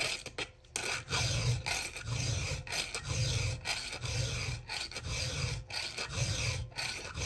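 Round file rasping across a chainsaw chain's cutter tooth in even hand strokes, about one a second: hand-sharpening the cutting edge to work off the burr left on it.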